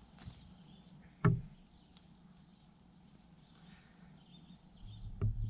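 Quiet outdoor ambience with faint bird chirps. About a second in comes a single sharp knock, and near the end low rustling and bumps as the fyke net is lifted and handled.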